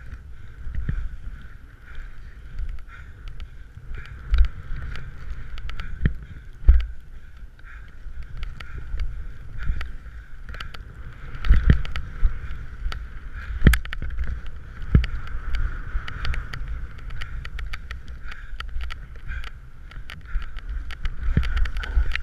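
A skier's heavy breathing during a run, with wind buffeting the microphone and skis scraping and clattering over snow in many short sharp clicks.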